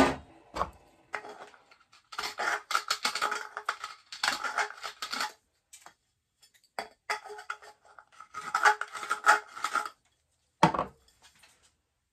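Hand deburring tool being twisted in the freshly cut end of a 3/4-inch Type L copper pipe, metal scraping on copper in two runs of quick strokes. There is a sharp click at the start and a single knock near the end as tools are handled.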